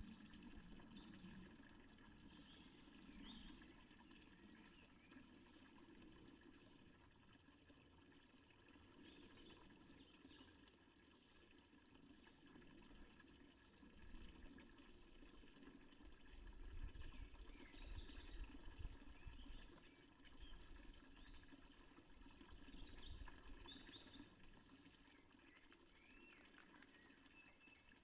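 Faint, steady splashing of a water fountain, with a few short, high chirps scattered over it.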